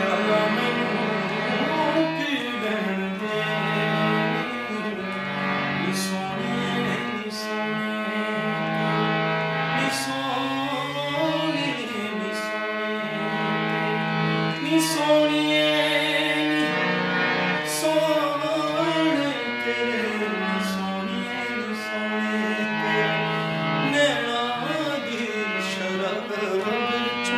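A hand-pumped harmonium plays sustained chords and melody while a man sings over it in long held notes with ornamented glides.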